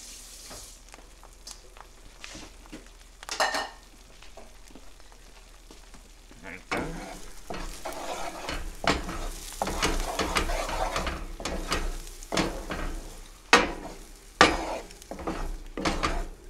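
Eggs and chorizo sizzling in a frying pan. From about seven seconds in, a wooden spatula stirs and scrapes the pan, with two sharp knocks near the end.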